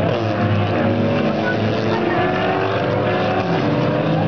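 Engines of several Volkswagen one-make race cars running on the circuit. One car's pitch drops as it passes right at the start, and the others hold steady and slowly rise as they accelerate out of the corner.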